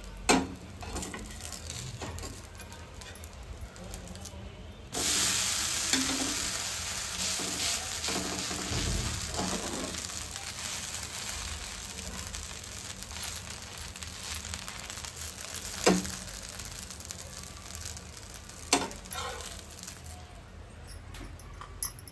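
Dosa batter sizzling on a hot flat griddle (tawa). About five seconds in, the sizzle jumps sharply louder as the dosa is flipped onto its raw side, then slowly eases off. A few sharp knocks of a metal spatula against the pan.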